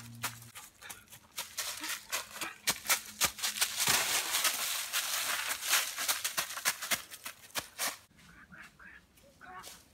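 Quick footsteps crunching through dry leaves and twigs: a rapid run of sharp crackles, with a dense stretch of rustling about four to six seconds in. About eight seconds in it turns quieter, and a few faint chirps come through near the end.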